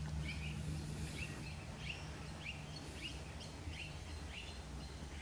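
A bird calling with short repeated chirps, about two a second, over a faint low steady hum.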